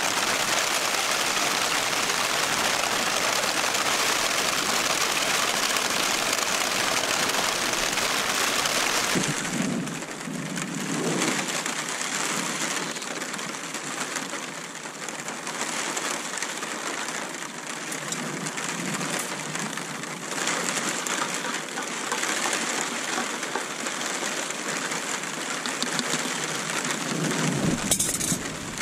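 Steady heavy rain pattering on a tent. A brief rustle near the end is the loudest moment.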